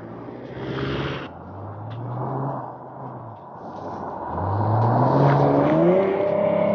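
2014 Ford Mustang accelerating hard toward and past the listener: the engine note climbs in pitch, falls back at gear changes, then climbs again. It grows louder as the car nears and is loudest as it passes near the end.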